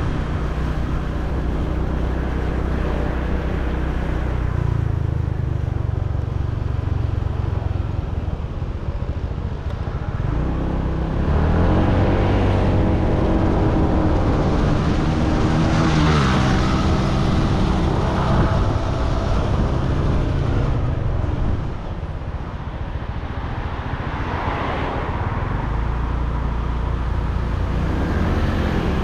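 Motor scooter riding in town traffic: steady engine and road noise. In the middle an engine grows louder, its pitch climbing and then falling away over several seconds.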